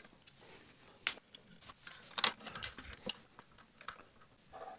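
Light clicks and knocks of 3D-printed plastic parts being handled and pushed together, a handful of separate sharp ticks with the loudest about two seconds in.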